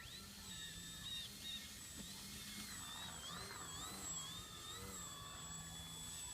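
Electric motor and propeller of a small RC foam plane running with a steady whine whose pitch wavers up and down in the middle as the throttle or the plane's distance changes.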